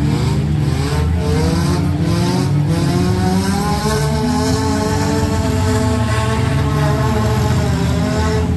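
Several compact-car engines in a demolition derby revving hard, their pitch rising and falling, with a few sharp knocks in the first three seconds.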